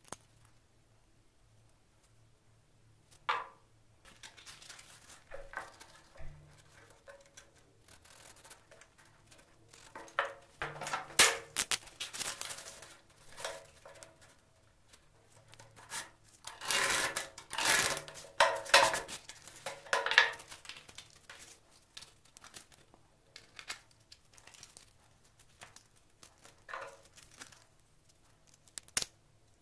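Coarse P50 sandpaper being cut with a utility knife along a straightedge and handled, with scraping and rustling of the sheet. The louder scraping comes in clusters in the middle stretch, with quieter handling sounds around them.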